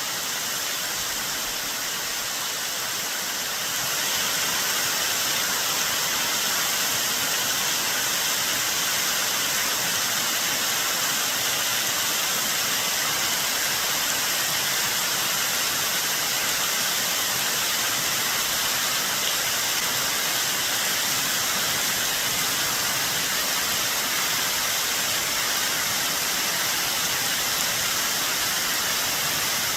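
Waterfall cascading off a cliff in full spring-runoff flow: a steady rush of falling water that gets a little louder about four seconds in and then holds.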